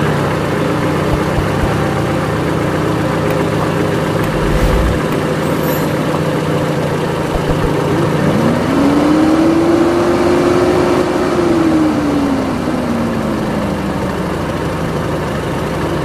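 A vehicle engine idling steadily. About eight seconds in it revs up, holds the higher pitch for a few seconds, then eases back down to idle.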